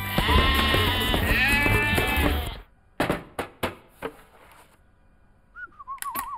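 Cartoon sheep bleating over background music, which cuts off suddenly about two and a half seconds in. Then come a few sharp clicks and, near the end, a short warbling tone.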